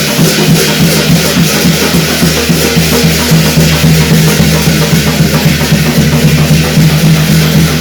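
Korean shamanic gut ritual music: fast, continuous drumming with a steady low tone sounding underneath, played loudly without a break.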